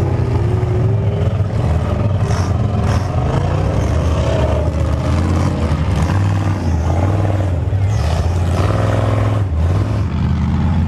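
Ultra4 rock-racing buggies' engines running under load as they climb a rocky hill, their pitch rising and falling.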